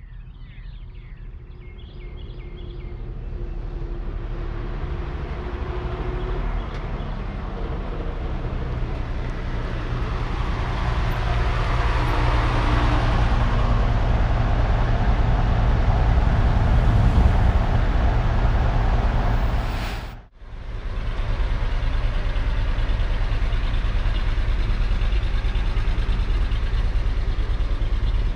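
A vehicle engine rumble swells steadily in loudness, with a rushing whoosh near its peak, and cuts off abruptly about twenty seconds in. A steady low engine idle follows, from the 1949 Chevrolet 3800's 235 cubic-inch inline-six.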